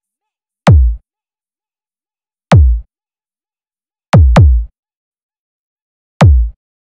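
Electronic bass kick hits from a sound-check remix: five hits, each a sharp click that drops fast into deep sub-bass, with silence between them and two in quick succession about four seconds in.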